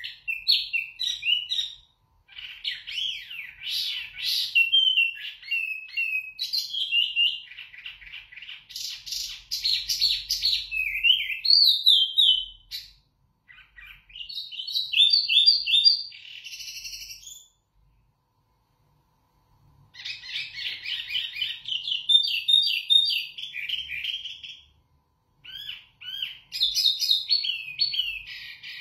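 Caged wambi mini songbird singing a loud, clear song of fast, varied whistles and trills in long bursts, with brief pauses and one silence of about two seconds around the middle.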